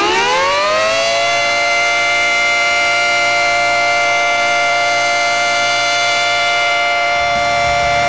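The Quebec Nordiques' goal horn, a siren, still winding up in pitch for about the first second and then holding one loud, steady wail, the arena's signal that the Nordiques have scored.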